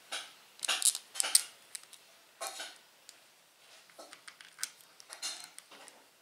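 Small metal parts clicking and scraping as a rod end cap, screw and nut are fitted by hand on the end of a smooth steel Y rod of a 3D printer frame. A cluster of sharper clicks comes about a second in, then lighter ticks later.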